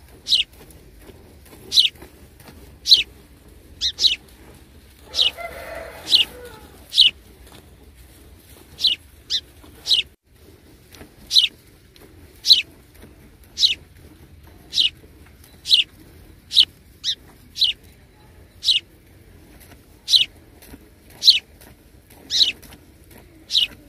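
Milk squirting from a cow's teats into a metal pail of frothy milk during hand milking: short high-pitched squirts about once a second, now and then two in quick succession. A brief lower noise joins in about five seconds in.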